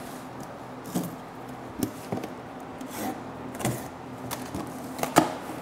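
A small cardboard box and its packing being handled: scattered light knocks and rustles, with a sharper knock about five seconds in.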